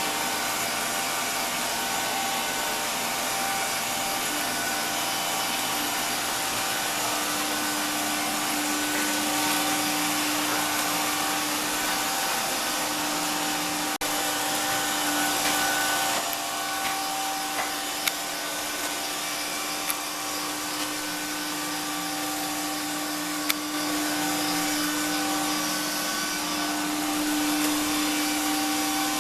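AEG robot vacuum cleaner running steadily, its motor and brushes making a constant whir with a steady hum. A few short clicks or knocks sound about two thirds of the way in, typical of the robot bumping into or brushing over things as it moves.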